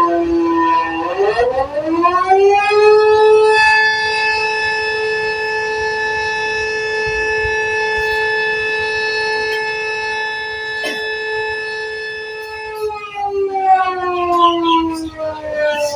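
Tornado warning siren wailing during a test. Its tone climbs starting about a second in, holds on one pitch for about ten seconds, then begins to fall near the end.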